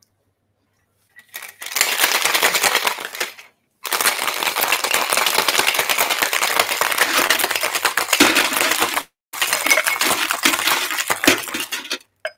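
Ice rattling hard in a gold-coloured metal cocktail shaker as a gin fizz is shaken, in three bouts with short breaks between, the middle one the longest.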